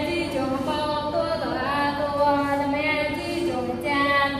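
A woman's voice chanting in a sing-song melody with long held notes, amplified through a microphone.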